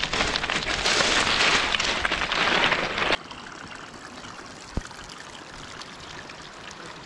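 Footsteps and a trekking pole crunching and clattering on loose rock scree for about three seconds, stopping abruptly; then a quieter steady hiss of flowing stream water with a single faint click.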